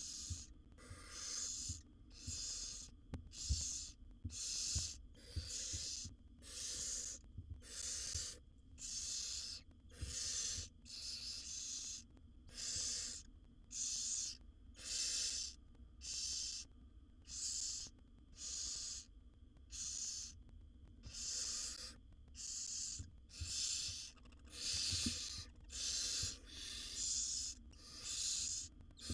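Barn owl nestlings giving their hissing, snore-like food-begging calls, repeated about once a second with some calls overlapping. Soft knocks and bumps from the nest box floor come now and then.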